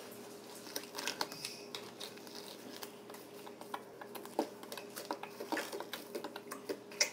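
Irregular small clicks and rustles of disposable gloves being worked onto the hands, over a faint steady hum.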